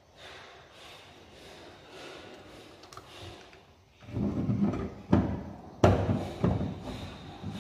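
Handling knocks and rubbing as a cylinder-type COB surface downlight is pushed up onto its mounting ring on the ceiling. A few quiet seconds come first, then a stretch of low rumbling contact noise with two sharp knocks less than a second apart.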